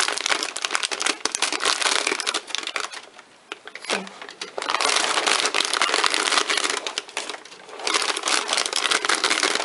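Parchment paper crinkling and rustling as crisp, dehydrated chips are peeled off it, in three bouts with short pauses between.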